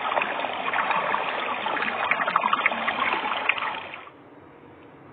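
Water sound, a trickling, splashing noise with scattered small clicks, that stops about four seconds in, leaving a faint hiss.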